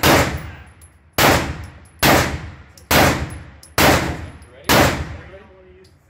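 Handgun shots, six in all at about one a second, each ringing out briefly in the echo of an indoor range lane.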